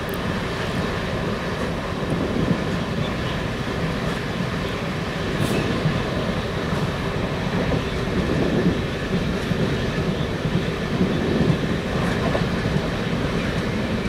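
Steady running noise of a moving passenger train heard from inside the coach: a continuous rumble of the wheels on the track.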